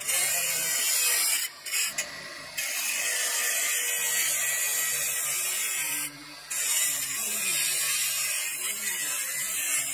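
Spinning abrasive disc on a motor spindle grinding onyx marble, a loud steady hiss that drops out briefly three times as the stone is lifted off the disc, about a second and a half in, around two seconds in and near six seconds in.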